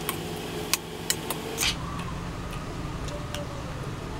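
Spoon and fork clinking and scraping on a plate: a scattering of sharp taps, one of them a short scrape about a second and a half in, over a steady background hum.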